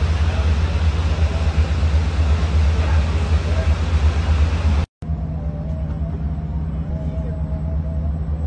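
Steady low rumble with faint, indistinct voices in the distance. About five seconds in the sound cuts out for an instant and comes back as a steadier low hum with the far-off voices.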